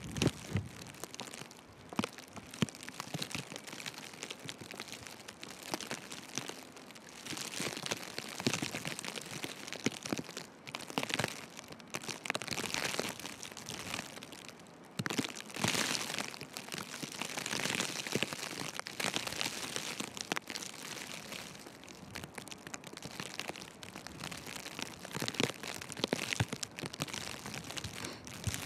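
Footsteps crunching in fresh snow, with a hiss of wind-driven falling snow that swells and fades every few seconds and many small scattered ticks.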